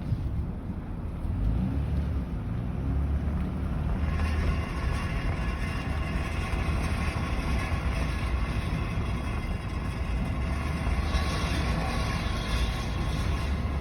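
Car making a rubbing noise while turning hard right in drive, a fault that shows only when turning right and only in drive, over the low rumble of the engine. The rubbing sets in about four seconds in and is loudest near the end.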